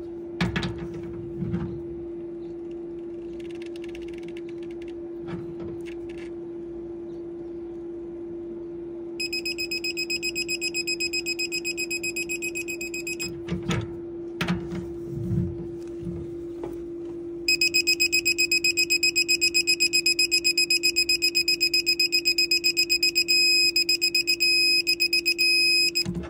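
Digital torque wrench beeping in fast, high-pitched pulses while a flare nut is tightened: one run of about four seconds, then a louder, longer run from about halfway through. This is its alert that the set torque is being reached. A steady low hum runs underneath, with a few knocks of the tool being handled early on.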